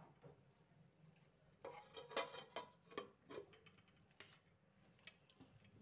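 Light clinks and scrapes of a spoon on stainless steel dishes as rice is served onto a thali, in a cluster from about two seconds in, with one more clink near the end.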